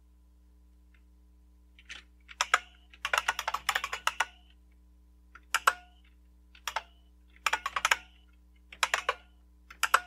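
Keystroke clicks of an IBM buckling-spring (Model M style) keyboard, emulated by the bucklespring program on each key press. After about two seconds of quiet come quick runs of clicky keystrokes, each word followed by a single key stroke.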